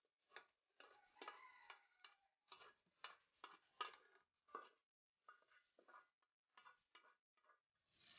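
A dozen or so faint, irregular taps and scrapes of a wooden spoon against an aluminium pot and colander as boiled cocoyam leaves are scraped out. Right at the end a pour of palm oil into an aluminium pot begins.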